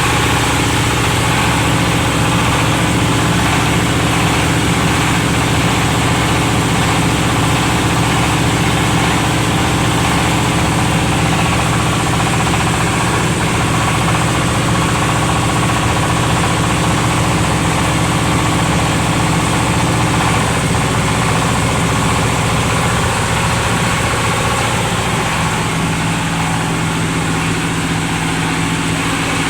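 Engine-driven oil palm loose-fruit thresher machine running steadily with a constant low engine hum; its tone shifts slightly a little past twenty seconds in.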